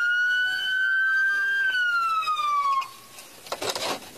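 Police car siren in a slow wail, its pitch rising slightly and then falling before it cuts off suddenly almost three seconds in. A brief burst of noise follows near the end.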